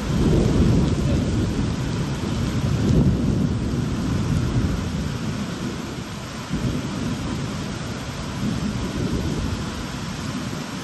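Thunder rumbling over steady heavy rain. The rumble swells in at the start, is loudest in the first few seconds, then slowly eases off.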